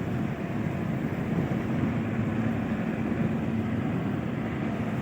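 Steady running noise of a moving road vehicle, heard from aboard: a low engine and road rumble with a faint steady hum.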